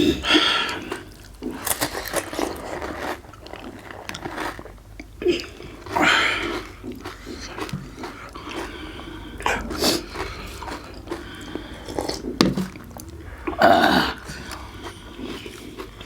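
Panipuri being eaten: crisp hollow puri shells bitten and chewed with scattered sharp crunches, and a few louder bursts of eating noise.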